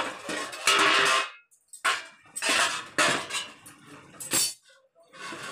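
Steel pan lid clattering as it is lifted off and put aside, then a steel spoon scraping and clinking in the pan as the okra curry is stirred, with a sharp clink about four and a half seconds in.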